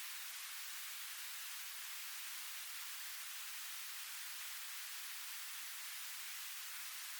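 Steady white noise: an even, unchanging hiss with its energy in the upper range and no low rumble.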